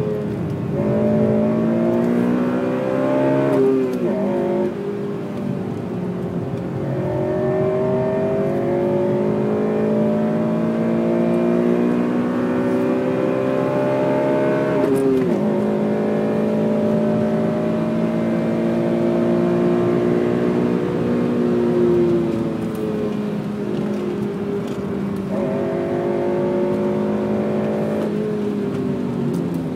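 Honda Civic Type R FN2's four-cylinder VTEC engine pulling hard through the revs. Its pitch climbs steadily for long stretches and drops sharply at the gear changes about 4 and 15 seconds in. Later it falls away, then jumps back up briefly about 25 seconds in.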